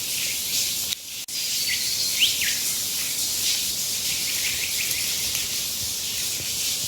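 Steady high-pitched insect chorus, with a few short bird chirps about two seconds in.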